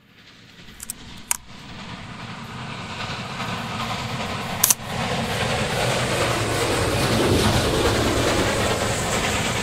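Train approaching, its rumble and rail noise growing steadily louder over several seconds, with a few sharp clicks near the start and a louder click about halfway through.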